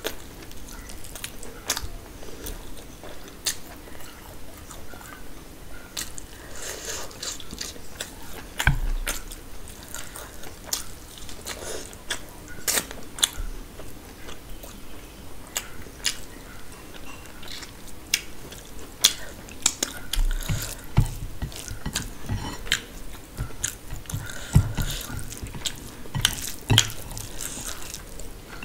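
Close-miked eating: a person chewing mutton and biryani, with many short wet mouth clicks and lip smacks, and a few dull low thuds in the second half.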